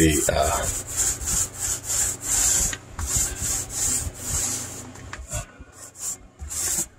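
Foam mini roller rolling Kilz primer back and forth over a cabinet door: a quick rhythmic swish of about three strokes a second, thinning out near the end.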